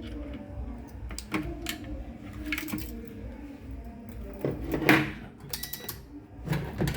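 Tools and small objects being handled and set down on a workbench: scattered clicks and knocks, the loudest about five seconds in, with a short run of rapid ticks just before the end.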